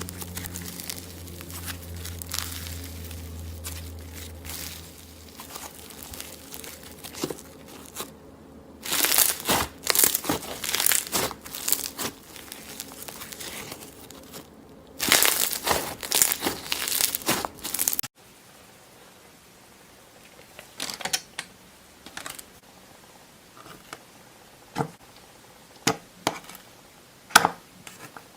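Slime being squeezed and stretched by hand, giving off dense crackling, crinkling noise in two long bursts. About two-thirds of the way through the sound changes abruptly to scattered single pops and clicks.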